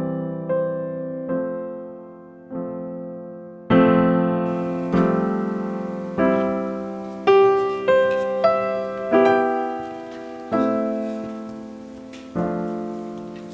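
Background music: solo piano playing a slow run of chords, each struck and left to ring and fade before the next.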